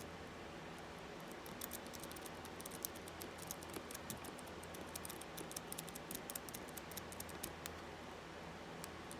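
Worm rake scrubbing in and out of an Abus 64TI 30 mm padlock's keyway: quick, irregular light metallic clicks and scratches of the pick raking over the pin stacks, densest through the middle and thinning out near the end.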